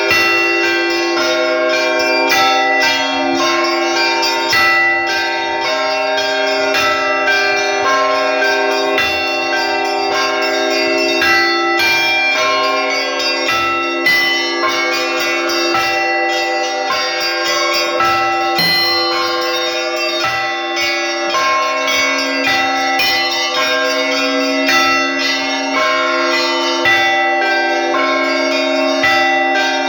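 Russian Orthodox church bell ringing by a single bell ringer on a monastery belfry. Small bells are struck in a fast, unbroken pattern over the lasting hum of the larger bells.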